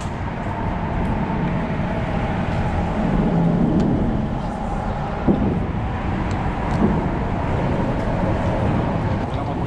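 Steady rumble of road traffic crossing the concrete bridge overhead, heard from underneath, swelling a little in the middle.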